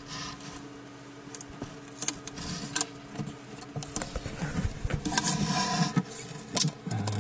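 Hands handling a Tiko delta 3D printer's plastic body and parts: irregular light clicks, taps and rustling, busiest about five seconds in.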